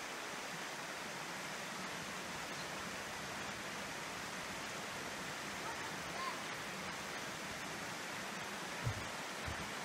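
Steady rushing of a rocky woodland stream tumbling over a small waterfall, with a couple of soft low thumps near the end.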